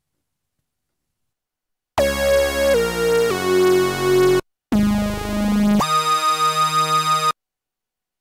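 Waldorf Blofeld wavetable synth lead playing a short phrase of five notes. The first three step down in pitch, then comes a lower note after a brief gap and a higher one to close. The tone is piercing and full of overtones, and its level wavers several times a second as an LFO shifts the balance between the two oscillators.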